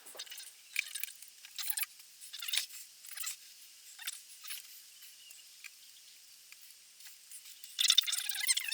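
Light, high-pitched clicks and scrapes from a piston and its rings being worked into a motorcycle cylinder barrel by hand, with a louder, squeaky scraping run near the end.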